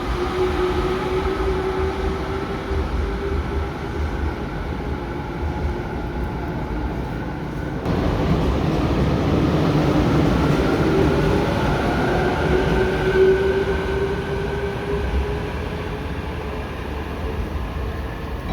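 Electric train running, with a steady whine over a rumble. The sound changes abruptly about eight seconds in, where one recording cuts to another.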